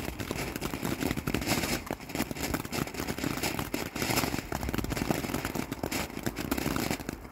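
Lesli 'Joystick' stick fountain burning: a steady rushing hiss of spark spray, studded with many sharp crackles. It dies away just before the end.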